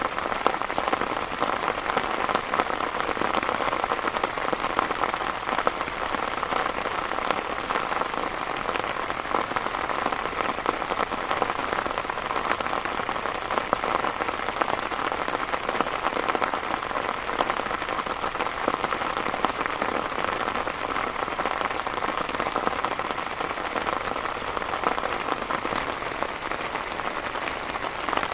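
Heavy rain falling steadily, countless drops striking a surface in an even, unbroken hiss.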